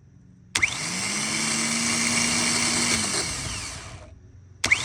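Starter motor spinning freely on a bench test: it whirs up to speed about half a second in, runs steadily, then winds down and fades after about three seconds. It gives a second brief spin near the end.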